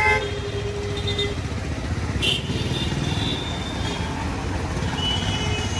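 Busy city street traffic, with a small engine running close by in a steady low rumble. A held tone sounds in the first second or so, and a few short high tones cut in later.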